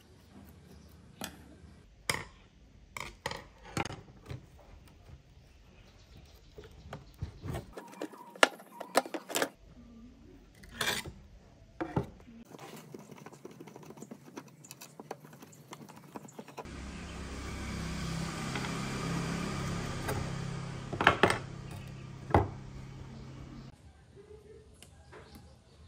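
Sharp metal clicks, taps and scrapes of a screwdriver working on a graphics card, prying the circuit board off its metal heatsink and scraping at the thermal pads. A steady hum with hiss comes in about two-thirds of the way through and stops shortly before the end.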